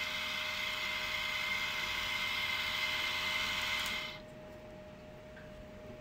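12 V, 20 RPM DC gear motor of a fishing-line tester running steadily with a whine, unloaded now that the line has broken, then stopping about four seconds in.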